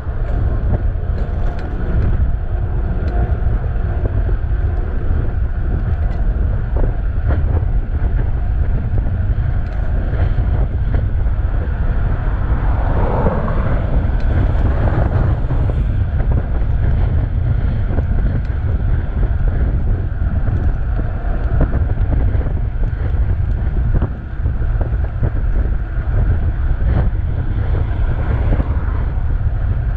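Steady wind buffeting on a chest-mounted GoPro Hero 7's microphone while riding a bicycle along a highway, with road traffic passing. A louder swell near the middle sounds like a vehicle going by.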